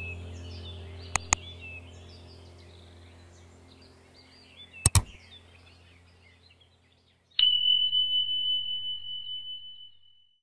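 Subscribe-button animation sound effects: a pair of mouse clicks about a second in and another near the middle, then a bell-like ding about three-quarters through, one high ringing tone that pulses as it fades. Beneath, fading birdsong ambience and a low hum die away.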